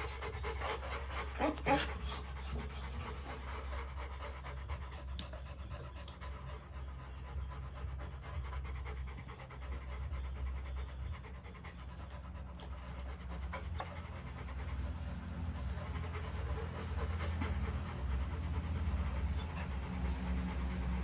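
Rottweiler puppies panting steadily with open mouths. A low rumble underneath grows louder near the end.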